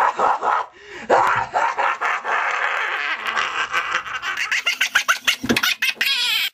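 A person laughing loudly and at length without words, the laughs coming in a fast run that rises in pitch near the end, then cut off abruptly.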